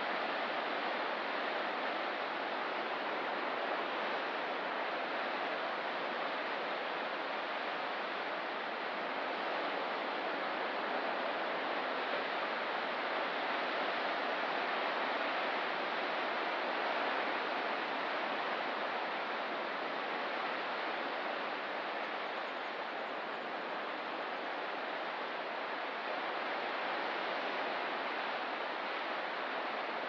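Ocean surf washing continuously: a steady hiss of breaking waves with only slight, slow swells in loudness.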